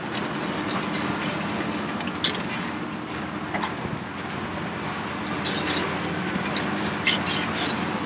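Hitachi ZX870 excavator's diesel engine and hydraulics running steadily as it swings back and digs, alongside an idling Cat articulated dump truck, with scattered short high-pitched squeaks and clicks.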